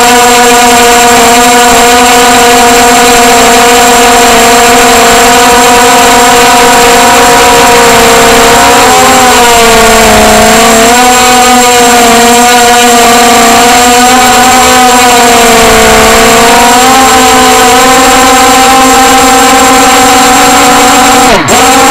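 Motor and propeller of a small radio-controlled aircraft, heard very loud and close through its onboard camera, holding one steady pitch. The pitch sags briefly twice, about halfway and again past two-thirds, then drops sharply near the end as the throttle is cut back.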